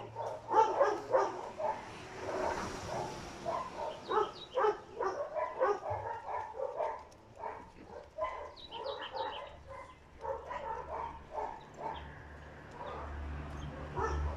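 Dogs barking over and over, short barks coming a few times a second and overlapping.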